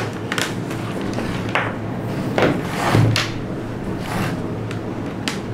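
Scattered soft knocks and clatter of power cables and a plastic extension socket being handled on a desk. Background music with steady low notes runs underneath.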